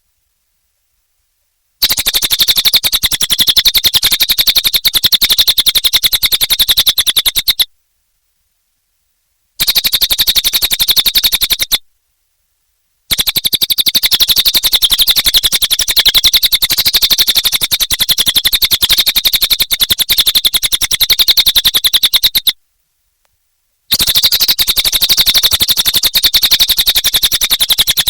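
Cililin songbird singing a high-pitched, very rapid string of repeated chirps, in long runs broken by dead silences.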